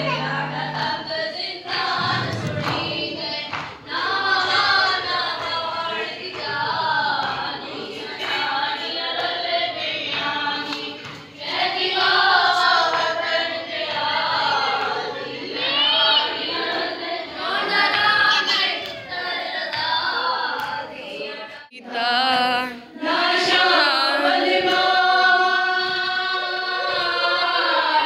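A group of voices chanting a noha, a Shia lament, in unison. The chanting breaks off briefly about three-quarters of the way through, then resumes.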